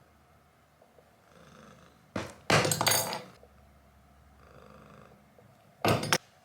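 Somali cat purring, with two louder stretches of close, noisy purring or handling about two seconds in and near the end.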